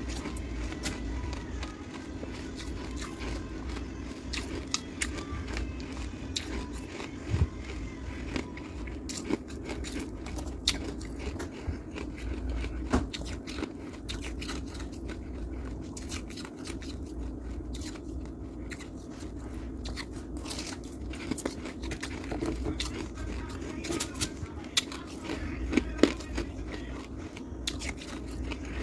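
Shaved ice and refrozen freezer frost crunching in irregular, sharp crunches over a steady low hum.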